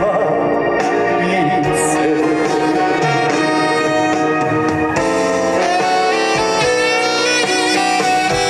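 Loud band music at a stage performance: a steady melodic passage with a sustained lead line that sounds like saxophone or brass over the accompaniment.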